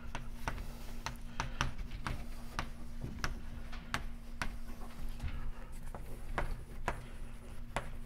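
Chalk writing on a blackboard: a string of sharp, irregular taps and short scrapes as letters are stroked onto the board.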